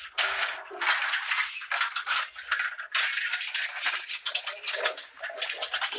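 Several bicycles rattling and clicking as they are wheeled over a rough dirt path.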